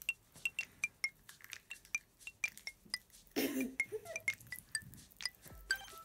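A rapid, irregular series of light clicks, each with a small high ping, several a second. A short vocal sound comes about three and a half seconds in.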